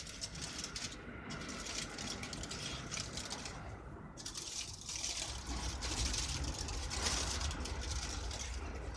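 Aluminium foil crinkling and crackling as it is folded and crimped shut by hand around fish in a frying pan, a continuous dense rustle.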